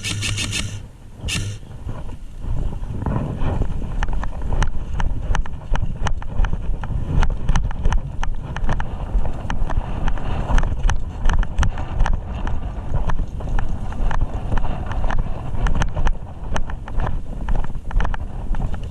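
Wind rumbling on the microphone, with a dense, irregular run of sharp clicks and knocks, and a brighter burst of sound in the first second or so.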